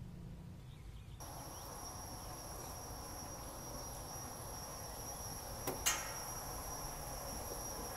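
Steady high-pitched whine over a low hum in an airport jet bridge, starting about a second in, with two sharp clicks close together about six seconds in.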